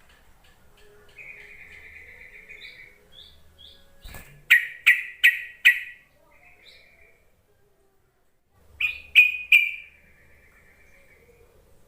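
Yellow-vented bulbul (trucuk) calling: bubbly chattering phrases with short high notes. Two bursts of loud, sharp notes break in, four together about halfway through and three more a few seconds later.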